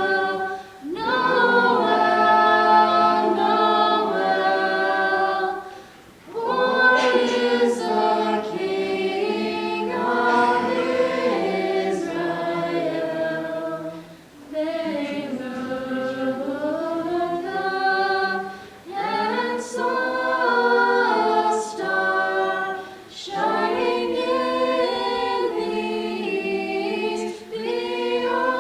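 A cappella vocal group singing a Christmas carol in harmony, several voices together in long phrases with brief breaths between them.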